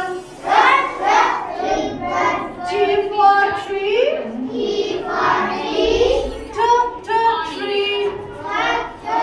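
A group of young children singing together in unison, a steady run of sung syllables.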